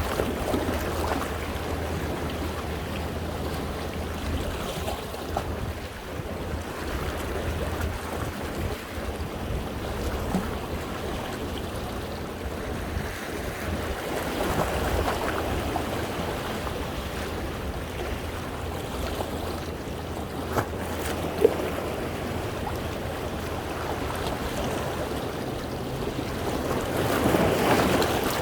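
Sea waves washing and splashing over shoreline rocks, swelling near the start, around the middle and again near the end, with a low wind rumble on the microphone. A single sharp tap comes about two-thirds of the way through.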